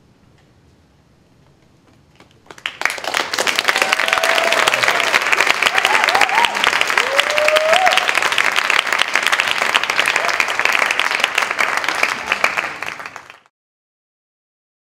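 Audience applauding, with a few voices whooping over the clapping. The applause starts about two and a half seconds in and cuts off abruptly near the end.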